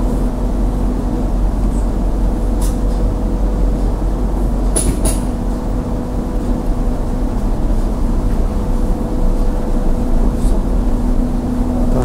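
Steady low drone of a ferry's engines heard inside the passenger lounge, with a constant hum under it. A couple of short high clicks about five seconds in.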